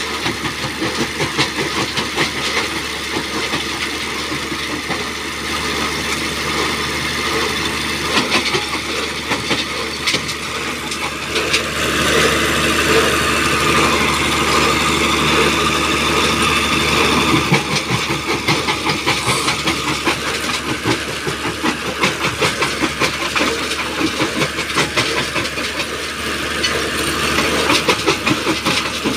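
Mobile jaw stone crusher running, driven by its onboard engine: a steady engine note under continuous rattling and crunching as stones are fed into the jaws. The sound gets louder for several seconds in the middle.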